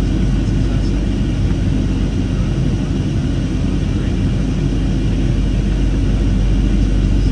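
Cabin noise of a Boeing 737-700 climbing out: a steady, loud, low rumble of airflow and its CFM56-7B turbofan engines, with faint steady high engine tones above it.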